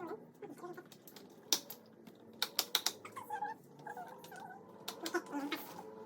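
Sharp plastic clicks and snaps from stroller parts being handled, with a quick cluster of them about two and a half seconds in. Faint wavering pitched sounds come between them.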